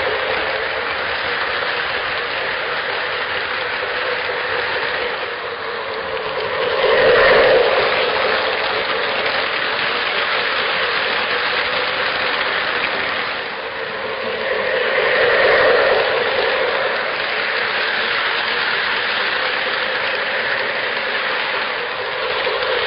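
O gauge model freight train led by Menards F-unit locomotives, running along the track with a steady rolling and motor noise that grows louder twice, about 7 and 15 seconds in.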